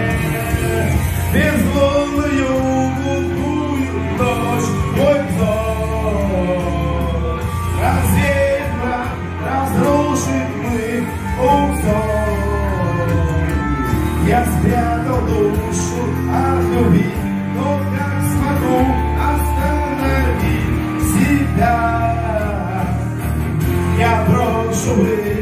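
A man singing a Russian-language song into a microphone karaoke-style, over a steady backing track.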